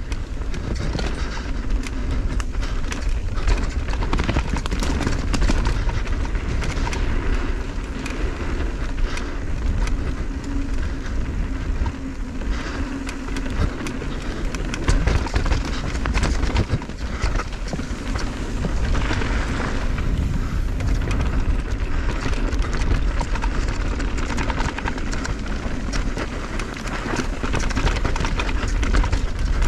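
Wind rushing over the action camera's microphone and knobby tyres running over dirt as a downhill mountain bike (Intense M16) descends a trail, with the bike's frame and chain clattering over bumps all through.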